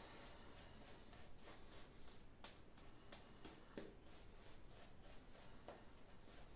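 Faint, quick scratchy strokes of an Omega 10065 shaving brush working thick soap lather over the face.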